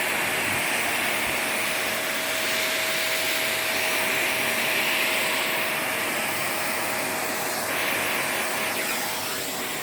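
Vacuum cleaner running steadily, its small brush attachment being worked over a split-system air conditioner filter to suck out the dust: a steady rush of air with a thin steady whine under it.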